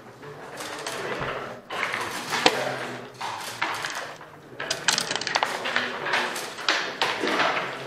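Dice and checkers clicking and clacking on a long-backgammon (nardy) board, with single sharp clicks and a quick run of clicks about five seconds in.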